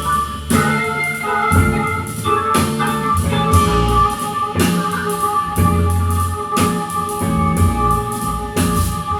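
Music with drums and sustained instrument tones, a strong beat about once a second.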